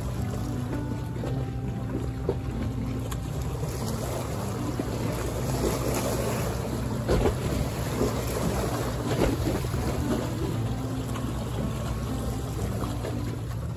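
Harbour water sloshing and splashing against the quay wall, louder for a few seconds mid-way, with wind on the microphone. Quiet background music with a slow stepping melody sits underneath.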